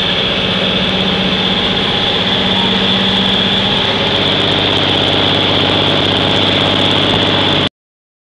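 1957 Mack B-75 truck engine running steadily at road speed, heard from inside the cab, with a steady high hiss over the engine drone. Near the end the sound drops out abruptly.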